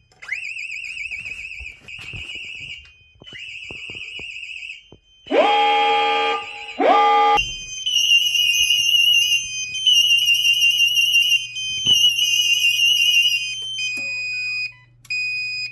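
Fire alarm sirens sounding after a DIP-34A smoke detector has tripped. A high warbling tone breaks off and restarts, two loud rising whoops come around the middle, then the warble returns in spells alternating with steady beeps over a low hum.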